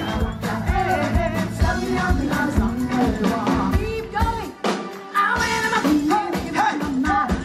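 Live band playing upbeat music, a singer's voice over a steady drum beat; the bass and drums drop out for a moment about halfway through, then come back in.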